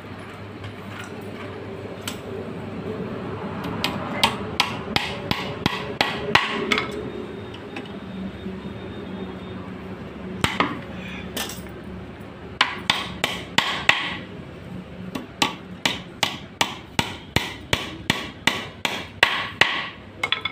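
Hammer striking wood in runs of repeated blows, about two a second, with short pauses between the runs.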